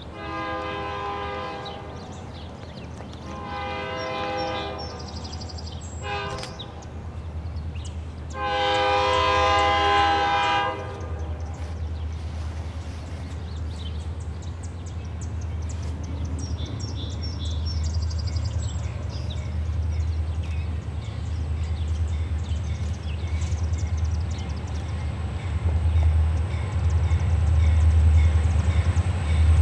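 Diesel freight locomotive's multi-tone air horn sounding the grade-crossing signal in the distance: two long blasts, a short one and a final longer, louder one. After the horn stops, the low rumble of the locomotive's diesel engine builds steadily as the train approaches.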